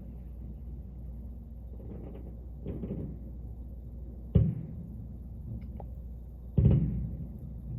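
Fireworks shells bursting with distant booms, heard from inside a hotel room: four in all, two fainter ones early and two louder ones about four and a half and six and a half seconds in.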